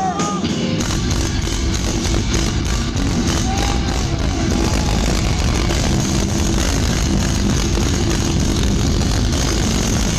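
Death metal band playing live and loud: heavy distorted electric guitars and bass with rapid drum hits, the full band crashing in about a second in.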